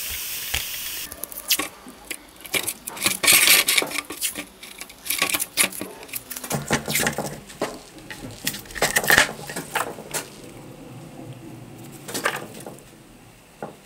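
Masking tape being pulled off the roll, torn and pressed down onto small plastic parts: irregular ripping and crinkling sounds. A steady hiss cuts off about a second in.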